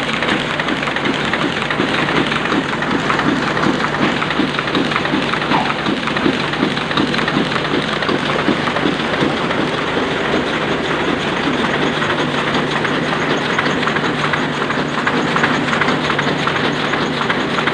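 Sakurai Oliver 66 offset printing press running, a steady, even rhythmic clatter of the machine's cycle over a constant mechanical hiss.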